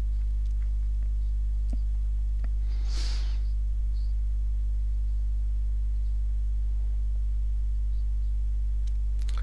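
Steady low electrical mains hum, with a short soft breath-like hiss about three seconds in.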